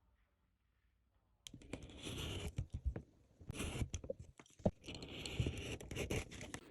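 Leather being worked by hand: irregular scratching and crunching strokes with a few sharp clicks, starting about a second and a half in.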